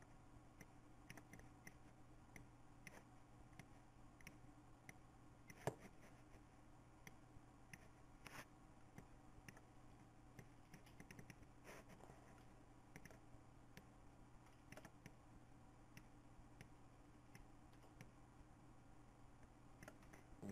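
Faint computer mouse clicks, scattered and irregular, with one louder click about six seconds in, over a steady low hum.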